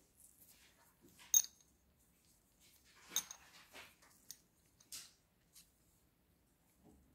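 A silver coin and a cast gold bar being handled in gloved hands, giving a few light metallic clicks and clinks. The sharpest clink, with a brief high ring, comes about a second and a half in, and a second comes about three seconds in.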